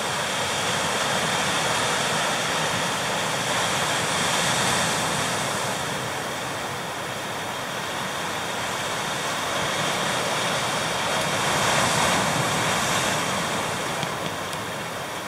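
Pacific surf breaking on the rocks below a sea cliff: a steady roar of crashing and washing water that swells twice as bigger waves break.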